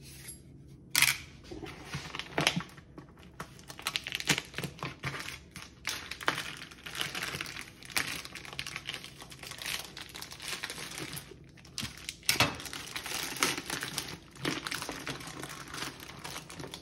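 Plastic vacuum-seal wrap on a beef roast crinkling and tearing as it is slit with a knife and peeled off the meat, with a few sharp clicks and snaps along the way.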